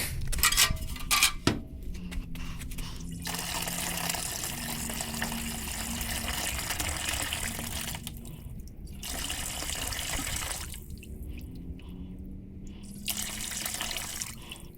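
Water running into a container to fill it, a steady splashing hiss that stops and starts twice, after a few clicks and knocks at the start.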